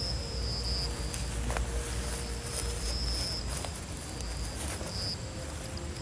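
Crickets calling in repeated high trills of about half a second each, with a few soft rustles from hands working in dry grass.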